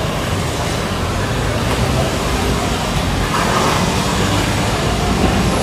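Steady road traffic noise from a busy city street, with no single vehicle standing out.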